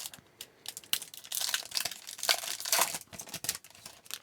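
Foil wrapper of a hockey card pack crinkling and tearing as it is ripped open by hand, a dense irregular crackle that is loudest in the middle.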